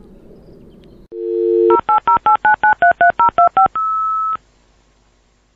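Telephone dialing: a dial tone for about half a second, then a quick run of about a dozen touch-tone keypad beeps and one longer single beep that cuts off suddenly.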